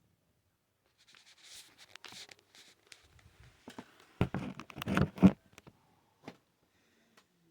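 Hands working on a plastic power strip and its parts: scraping and rustling, then a burst of loud clattering knocks about four seconds in and a single click near the end.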